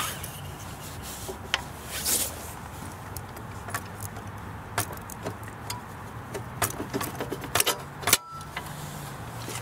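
Scattered metal clicks and light rattles from the hitch bike rack's tilt pin and bracket as the pin is handled and slid into a higher hole, with a sharp click near the end. A steady low hum runs underneath.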